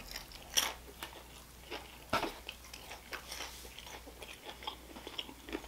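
Close-up chewing of heavily breaded fried shrimp: soft, irregular crunches of the batter, with the sharpest bites about half a second and two seconds in.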